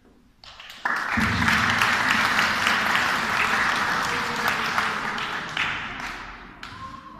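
Audience applauding: many hands clapping, starting abruptly about a second in and dying away near the end.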